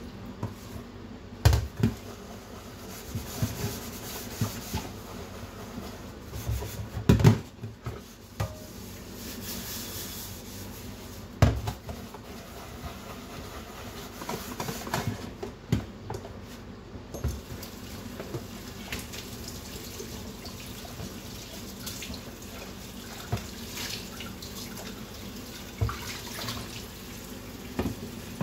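Dishes being washed by hand in a stainless steel sink: water runs and splashes steadily, and a pot knocks against the metal basin every few seconds. The sharpest knocks come about 1.5, 7 and 11.5 seconds in.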